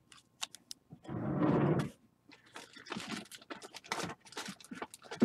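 Foil trading-card pack wrapper being handled: scattered crinkling and crackling, with a louder rustle about a second in that lasts under a second.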